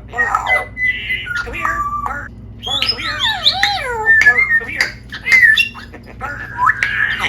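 A pet parrot calling loudly: a rapid run of whistles, squawks and chattering notes that glide up and down in pitch, with sharp clicks in between.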